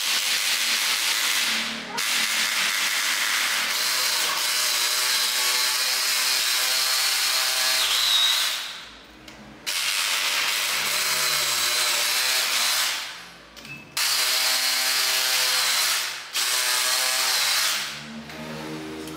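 Hammer drill boring into a tiled floor with a masonry bit. It runs in five spells of a few seconds each, with brief stops between them.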